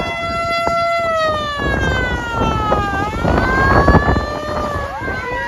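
Low-pitched motor siren on a fire command vehicle running on an emergency call. It holds a steady wail for about a second, slowly winds down, winds back up, drops again, and near the end starts another rising wind-up, over engine and road noise.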